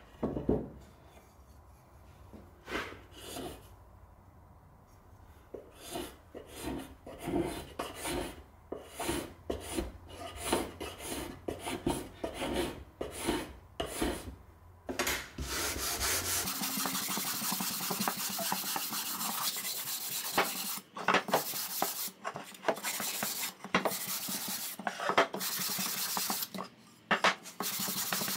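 Abrasive paper on a hand sanding block rubbed back and forth along a wooden rail, in scraping strokes about two a second. About halfway through it turns to faster, near-continuous sanding with only short breaks.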